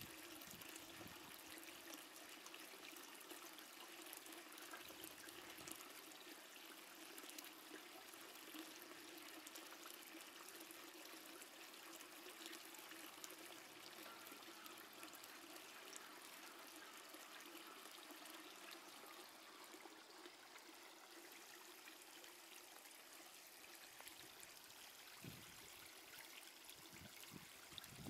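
Near silence: a faint steady outdoor hiss with a low steady hum, and a few soft low thumps near the end.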